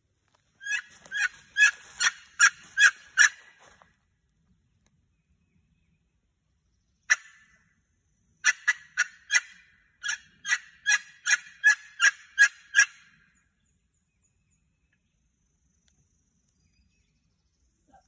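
Turkey yelps: a run of about eight sharp, evenly spaced notes, a single note after a pause, then a longer run of about eleven notes, two to three a second.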